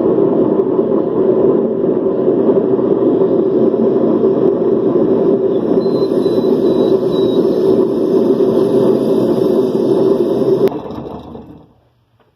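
Washing machine drum spinning with a loud, steady rumble, the noise used to test for worn drum bearings. It dies away over about a second near the end.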